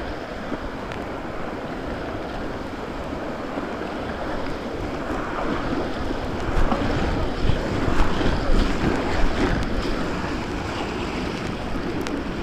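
White-water river rapids rushing and splashing around a kayak, heard close up from the boat; the water gets louder and choppier from about six to ten seconds in.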